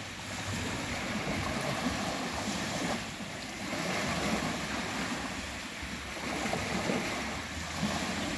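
Small waves breaking and washing up a sandy beach, swelling about every three seconds, with wind rumbling on the microphone.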